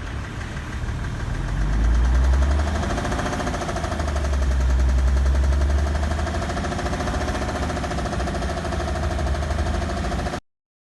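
BMW M57N 3.0-litre straight-six diesel in an E65 7-series running with a rapid, rhythmic knock. The knock comes from a worn connecting-rod bearing shell on cylinder 5. The sound cuts off suddenly near the end.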